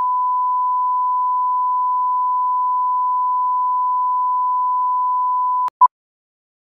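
A steady, pure broadcast test tone (bars-and-tone reference tone) that cuts off suddenly near the end. A moment later comes one short beep at the same pitch, the first beep of a film countdown leader.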